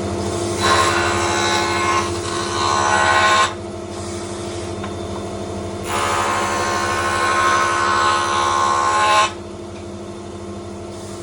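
A woodworking power tool's motor running steadily, with two long passes of cutting into wood, each a few seconds, that make it much louder before it drops back to the motor's hum.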